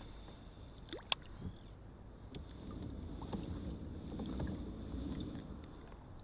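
Small fishing boat on the water: uneven sloshing and knocking of water and gear against the hull, louder in the middle stretch, with a sharp click about a second in.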